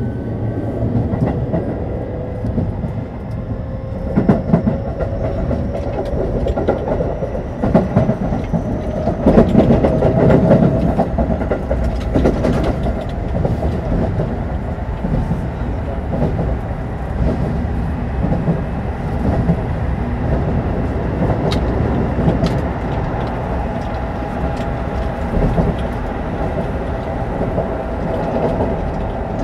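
Keio 9000 series commuter train heard from inside motor car Deha 9153: its Hitachi IGBT inverter and traction motors whine, the pitch rising over the first few seconds as the train picks up speed. It then runs on steadily with wheel-on-rail rumble and rail-joint clacks, louder for a few seconds around ten seconds in.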